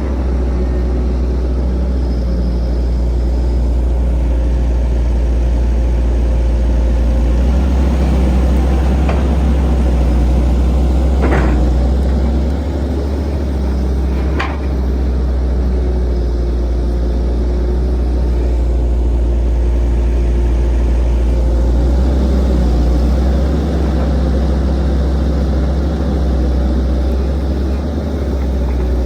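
Heavy diesel engines of an excavator and a dump truck running steadily with a deep, low sound. Three sharp knocks come near the middle.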